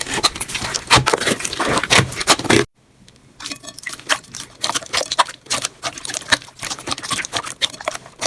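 Slime being squeezed and pressed by hand, making dense, irregular sticky clicks and pops. It cuts off abruptly about two and a half seconds in and, after a brief near silence, softer clicking and popping resumes.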